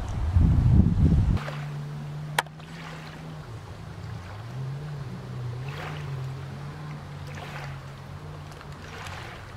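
Wind buffeting the microphone as a loud low rumble, cut off abruptly a second and a half in. It is followed by a steady low hum that dips and rises in pitch around the middle, with a single sharp click shortly after the cut.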